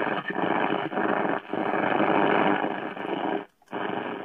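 Grundig Music Boy portable radio's loudspeaker hissing with medium-wave static as the tuning knob is turned between stations. The noise cuts out briefly about three and a half seconds in.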